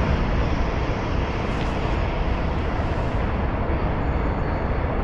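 Steady rush of fast-flowing river water, the current running high from water let out of a dam upstream.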